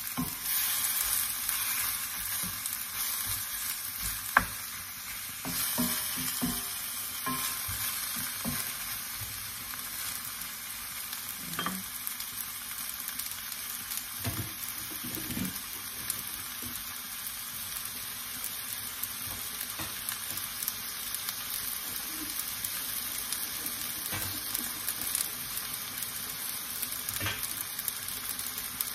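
Diced pork sizzling steadily as it fries in a wok, with a wooden spatula stirring and scraping through the meat over the first several seconds, a few clicks and knocks against the pan among them.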